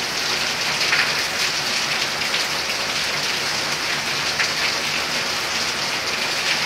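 Heavy downpour: a steady hiss of rain falling on clay-tile roofs, with a few louder splashes of single drops.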